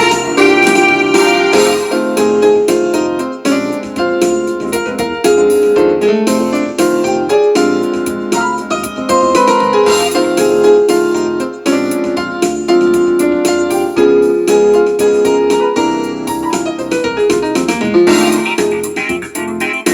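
Background music with keyboard or piano notes played throughout.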